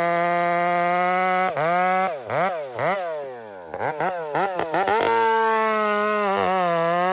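Two-stroke chainsaw engine running at high revs with a steady, buzzy note. From about a second and a half in, its pitch drops and climbs back sharply several times, and the engine briefly goes quieter around the middle. It settles back to a steady high speed for the last couple of seconds.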